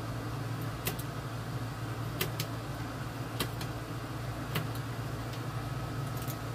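Knife cutting and snapping off brittle old wood veneer from a radio cabinet, giving a scattering of short sharp clicks about a second apart over a steady low hum.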